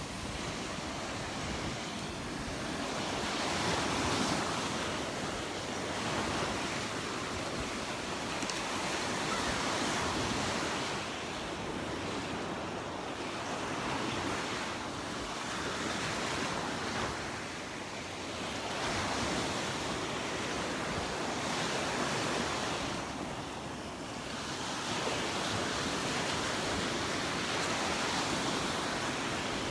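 Gulf surf breaking and washing up the beach, swelling and easing every few seconds, with wind buffeting the microphone.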